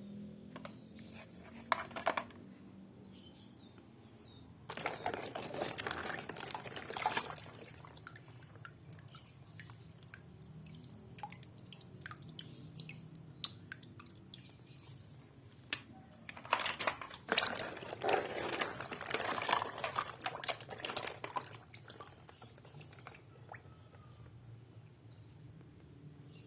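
Scattered small clicks and two longer bouts of dense crackling rustle, the first about five seconds in and the second about sixteen seconds in, over a steady low hum.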